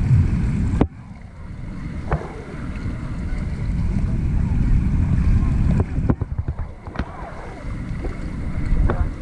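Wind buffeting the microphone on a paddled river raft, over water noise, with a few sharp knocks. The loudest knock comes about a second in, where the wind noise suddenly drops.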